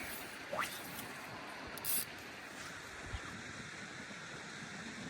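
Steady rush of a small creek's flowing water mixed with wind on the microphone. About half a second in there is a short falling whistle, and near two seconds a brief hiss.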